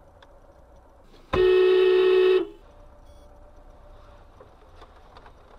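A car horn sounds once, a single steady honk lasting about a second, over a faint hum from inside the car.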